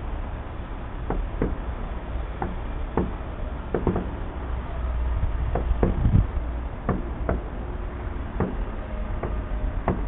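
Steady low rumble with irregular sharp knocks and taps, about one or two a second.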